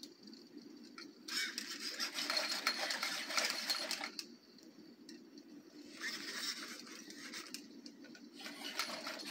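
Sony aibo robot dogs' joint motors whirring and buzzing as they move, in two stretches of a few seconds each, about a second in and again about six seconds in, over a faint steady low hum.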